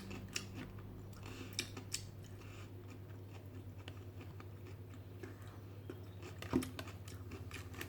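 A person chewing and eating barbecue ribs close to the microphone: faint mouth sounds and small scattered clicks, with one sharper click near the end, over a low steady hum.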